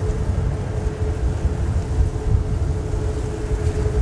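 Airbus A340-500's four Rolls-Royce Trent 500 jet engines running as the airliner rolls along the runway: a steady low rumble with one steady mid-pitched tone held above it.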